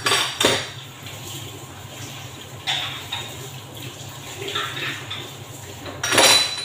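Dishes and utensils clinking and clattering as they are washed by hand in a sink, with some water sounds. A few sharp clatters come just after the start, and the loudest one, with a short ring, comes near the end.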